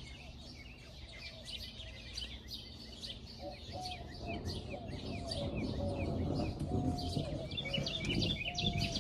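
Many small birds chirping at once, a steady chatter of quick, short calls, over a low rumble.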